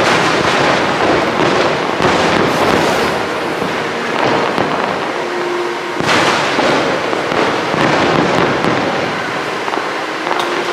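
Aerial fireworks going off in rapid succession, a dense, unbroken barrage of bangs and crackle, with heavier volleys about 2 and 6 seconds in.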